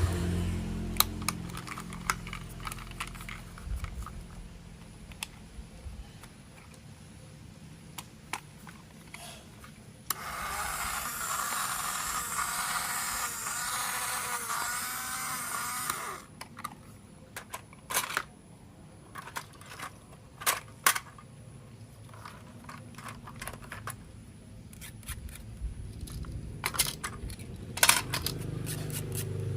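Small plastic toy train parts being handled, with repeated sharp clicks and taps. About ten seconds in, a loud rustling noise runs for some six seconds, then the clicks go on.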